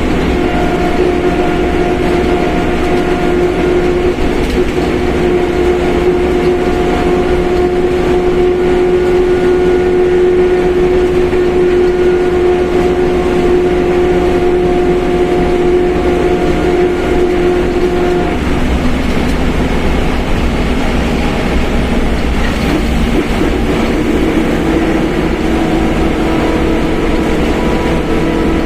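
Mercedes-Benz OF1721 BlueTec 5 bus on the move, its differential roaring loudly as a steady whine over the drivetrain noise. The whine drops away about eighteen seconds in and lower, shifting tones take over as the running note changes.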